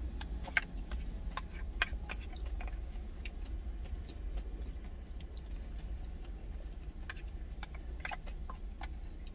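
Someone eating soupy rice in cheonggukjang stew from a thermal lunch jar: chewing, with scattered sharp clicks of a wooden spoon against the jar, over a steady low hum.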